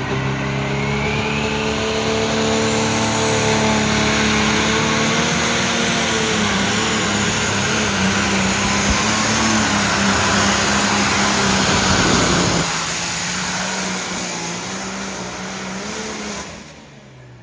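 Turbocharged diesel pulling tractor running at full throttle under load as it drags a weight-transfer sled, its engine note wavering up and down. About twelve and a half seconds in the engine drops off sharply and then fades further near the end.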